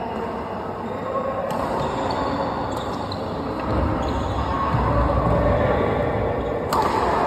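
Badminton rally: three sharp racket-on-shuttlecock strikes spread over a few seconds, the loudest near the end. Low thuds of players' footsteps on the court come in the middle.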